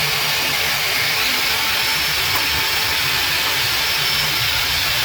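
Gas brazing torch flame hissing steadily while a part is brazed onto a steel U-channel.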